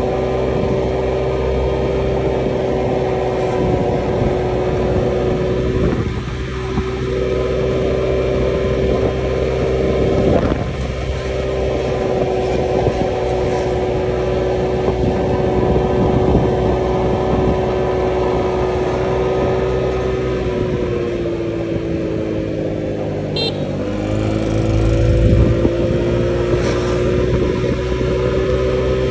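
Honda Click scooter engine running at a steady cruise, with wind rumbling on the microphone. About twenty seconds in, the engine note drops as the scooter slows, then rises again as it picks up speed.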